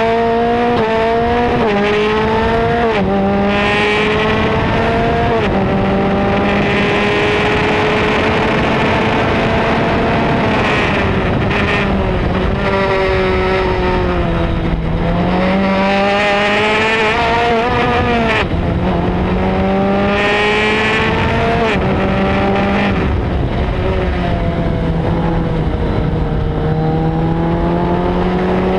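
Formula Speed 2.0 single-seater race car's engine heard onboard under hard acceleration, its pitch climbing and dropping sharply with several quick upshifts in the first few seconds. Around the middle it falls away as the car slows for corners, then pulls up through the gears again, climbing and shifting.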